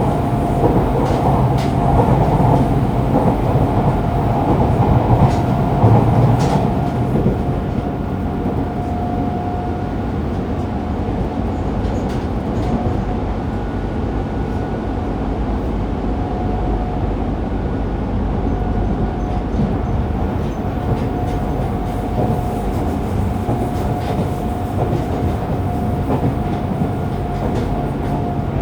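Fukuoka City Subway 2000-series train with a Hitachi GTO-VVVF inverter running between stations, heard inside the car: steady rumble of wheels on rail with some clatter and a level whine that comes and goes. The rumble is a little louder in the first few seconds, then holds steady.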